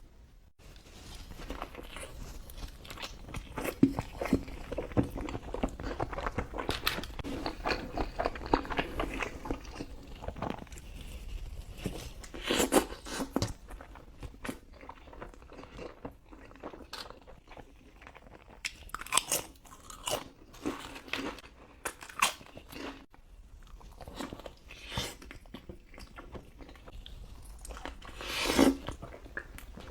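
Close-miked eating: a person biting into and chewing a chili cheese dog, with crunchy bites and steady wet chewing. Louder bites come about 4 s in, near the middle, and just before the end.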